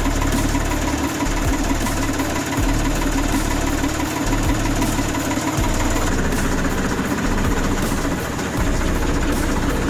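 Torpedo TD 45 06 S tractor's diesel engine running steadily, its sound growing rougher about six seconds in.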